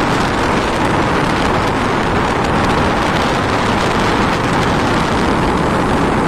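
The fan of a 38-litre Hindware Froid air cooler running, its air blowing straight onto the microphone at the front louvres: a loud, steady rush of wind noise.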